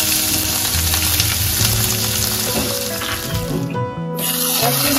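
Sliced onions sizzling in hot ghee and oil in a non-stick kadai as they are stirred with a spatula over a medium flame. The sizzle breaks off briefly about four seconds in.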